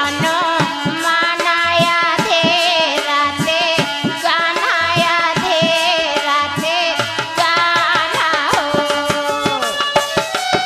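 A woman sings a sohar, a North Indian folk song for a birth, in quick, bending melodic lines over steady dholak drum strokes. About ten seconds in, the singing stops and held instrument notes carry on with the drum.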